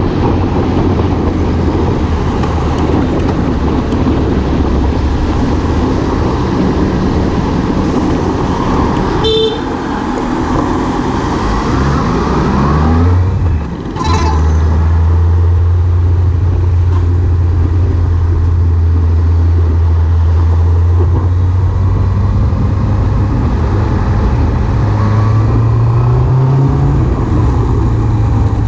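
Motorbike engine running at road speed, its pitch climbing as it speeds up about twelve seconds in and again near the end. A short horn toot sounds about nine seconds in and another at about fourteen seconds.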